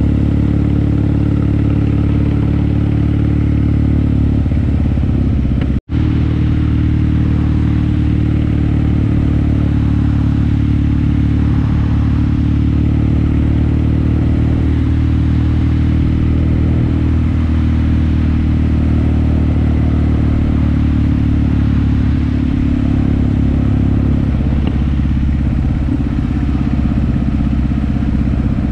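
Kawasaki KZ750 motorcycle engine running at a steady cruising speed, its note holding an even pitch throughout. The sound drops out for an instant about six seconds in, then carries on as before.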